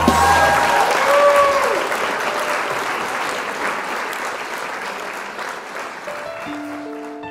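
Audience applause after a song ends, fading away gradually. Near the end a few piano notes begin.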